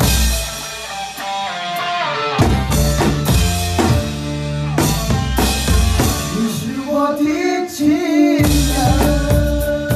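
Drum kit played along to a pop song track, with bass drum, snare and cymbal strikes in time with a sustained melody. The drums and bass thin out for the first couple of seconds and again briefly about three-quarters through.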